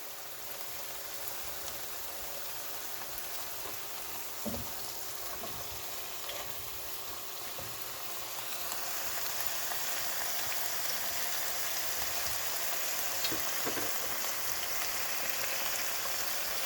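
Mushroom chilli simmering in its onion-tomato and soy sauce gravy in a hot pan, sizzling steadily and growing louder about halfway through, with a few light knocks.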